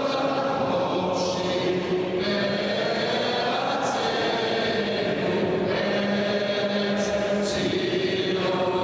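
Men's synagogue choir singing a slow liturgical chant, several voices holding long notes.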